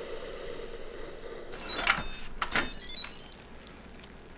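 Instant Pot pressure cooker hissing softly as the last steam escapes, the hiss stopping about a second and a half in. Then the steel lid is twisted open and lifted off with two clicks and brief high squeaks.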